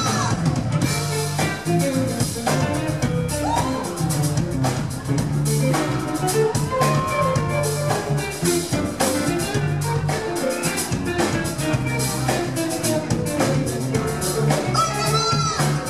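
Live band playing an instrumental passage, with a drum kit keeping a steady beat under bass and melody lines.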